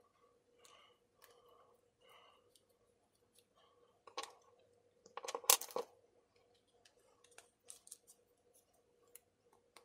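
Small clicks and taps of resin pen finials and a fountain pen being handled and screwed on, with a sharper clatter of clicks about five seconds in, like a small finial set down on a hard desk.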